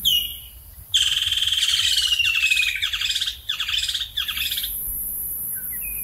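Woodland kingfisher calling: a short note, then about a second in a long rapid trill that slides down in pitch for nearly two seconds, followed by several shorter trills.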